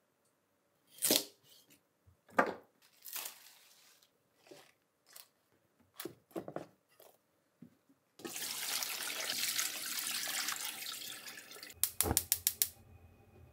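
Meat and vegetables being set into an aluminium stockpot with two heavy thuds and some lighter knocks. Water then runs steadily into the pot for about three and a half seconds. Near the end, a gas stove's igniter clicks rapidly about seven times as the burner lights, with a low hum under it.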